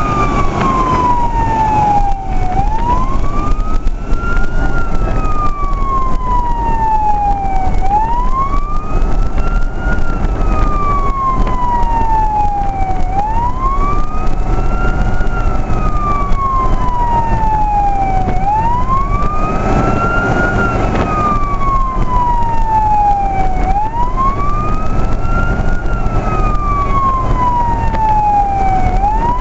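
Fire engine siren on a slow wail: each cycle rises quickly, then glides down for about three seconds, repeating roughly every five seconds. It is heard from inside the truck's cab over steady engine and road noise.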